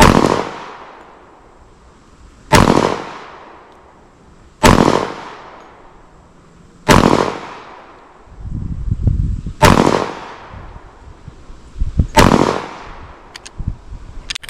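Glock 30 compact .45 ACP pistol firing six single shots, paced about two to three seconds apart. Each is a sharp crack with a ringing tail that fades over about a second.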